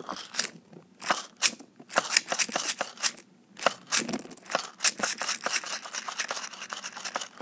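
Homemade balloon fidget filled with beads being squished and rubbed by hand close to the microphone: a dense, irregular crackling and crunching of beads and rubber.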